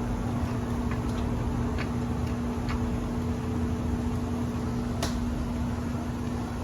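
A steady low mechanical hum with a few sharp, scattered clicks and taps, the loudest about five seconds in.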